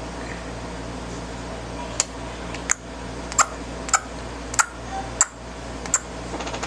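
Young child clicking her tongue: a run of sharp, evenly spaced clicks, about one every two-thirds of a second, starting about two seconds in over a steady background hum.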